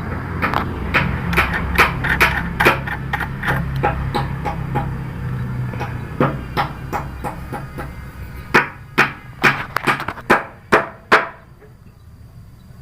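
Repeated sharp knocks and clinks of hand work on a saw during blade fitting: several a second at first over a low hum, then a run of louder single strikes about two a second that stops about eleven seconds in.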